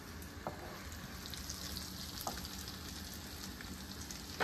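Semolina-and-gram-flour-coated pomfret shallow-frying in oil on a low flame: a steady sizzle with fine crackling, broken by a few short clicks, the sharpest near the end.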